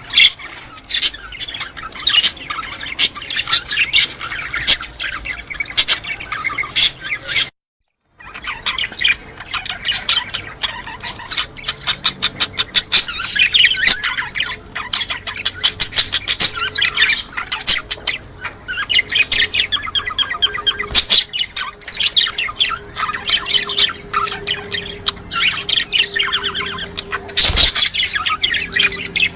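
A flock of small cage birds chirping and chattering continuously in rapid overlapping calls, broken by a sudden gap of silence just under a second long about eight seconds in. It is the kind of birdsong recording played to stimulate pet birds to breed.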